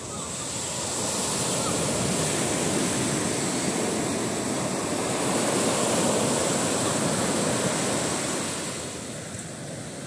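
Small ocean waves breaking and surf washing up a sandy beach. The rush swells about a second in and eases near the end.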